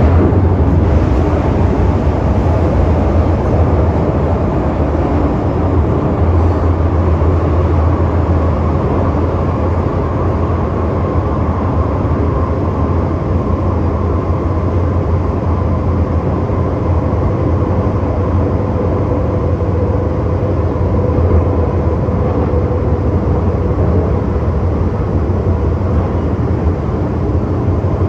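Metro-Cammell M-Train electric multiple unit running between stations, heard from inside the passenger car: a steady low rumble of wheels, motors and running gear. A faint steady whine rises through the noise in the middle of the stretch and fades again.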